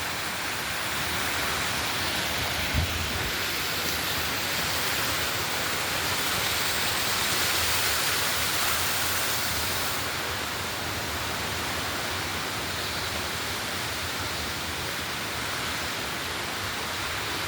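Steady rushing of a waterfall, with a single low thump about three seconds in.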